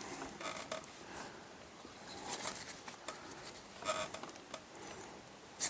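Board game components being handled: faint scattered taps and rustles, with a sharper click near the end.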